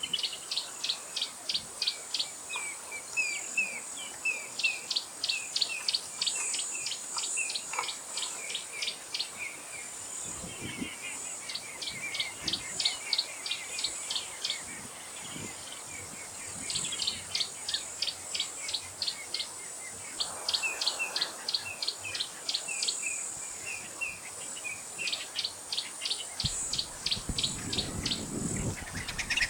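A bird sings the same phrase over and over: a rapid run of sharp, evenly spaced notes lasting about two seconds, repeated every few seconds. Behind it runs a steady high-pitched insect buzz.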